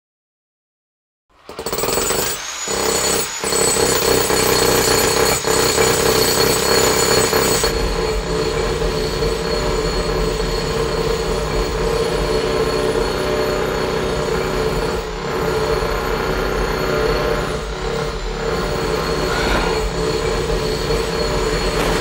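Jackhammer hammering, starting suddenly about a second in and running loud and continuous with a steady drone under it, after a couple of brief breaks early on.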